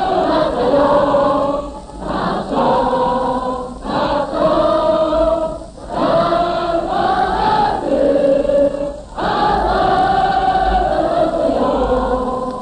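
A choir of several voices singing in long held phrases of about two seconds each, with short breaks between them, heard on an archival 1944 radio broadcast recording.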